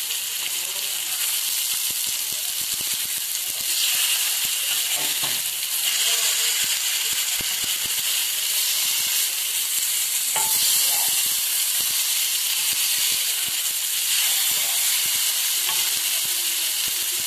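Masala-coated seer fish slices shallow-frying in oil on a flat tawa: a steady sizzle with fine popping crackles, a little louder a few seconds in. A metal spatula moves among the pieces partway through.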